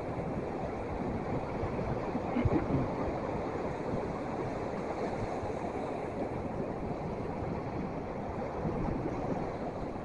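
Steady rush of surf and wind at the shore, with two or three brief knocks about two and a half seconds in.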